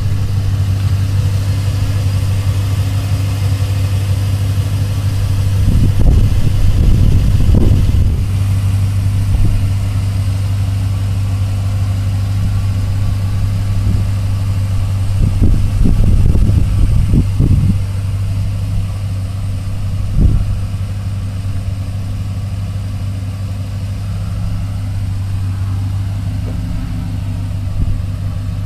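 A 2010 Ford Mustang GT's V8 idling through a Flowmaster American Thunder exhaust, with a steady deep note. It swells louder and rougher for a couple of seconds about six seconds in and again around fifteen seconds in, with a short blip near twenty seconds.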